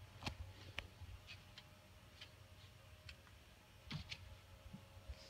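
Faint, irregular clicks and ticks over a low steady hum.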